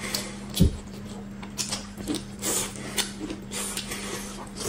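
Close-miked eating sounds: irregular wet clicks and smacks of chewing as boiled chicken meat is torn from the bone and eaten, with one dull thump about half a second in. A faint steady hum sits underneath.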